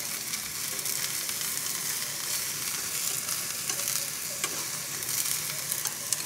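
Eggplant strips sizzling in a little oil in a nonstick frying pan over high heat, steadily hissing, while a wooden spatula stirs them with scattered light scrapes and taps on the pan.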